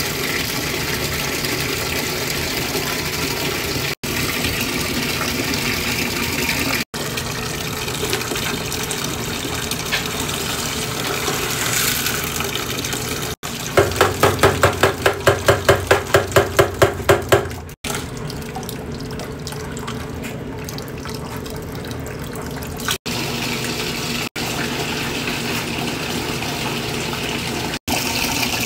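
Water pouring into the drum of a top-loading washing machine as it fills, a steady rush that breaks off briefly at several points. Partway through there are about four seconds of rhythmic glugging, four or five a second, as liquid is poured from a bottle into the drum.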